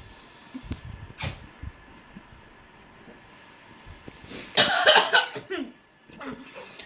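A boy coughing in a short hard burst, about four and a half seconds in, after gulping fizzy soda from a bottle; before it, a few soft low gulping sounds.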